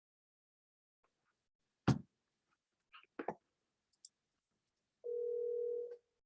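Telephone line sounds: a few sharp clicks, then a steady telephone tone lasting about a second near the end.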